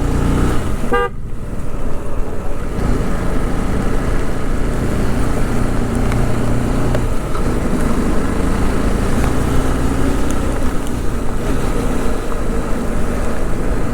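Motorcycle riding steadily in the rain: engine running under a constant rush of wind and road noise. A short, high pitched tone sounds about a second in.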